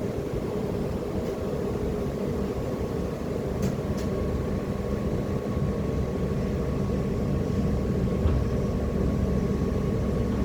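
Steady low engine drone with a faint steady whine above it, and two brief clicks about four seconds in.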